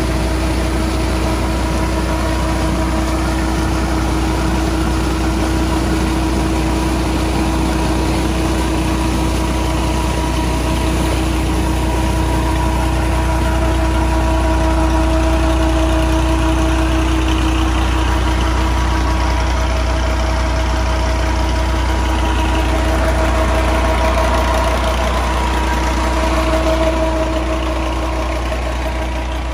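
Massey Ferguson 240 tractor's three-cylinder diesel running steadily under load, turning a tubewell pump through its PTO shaft, with a steady whine over the engine and water gushing from the pump's delivery pipe.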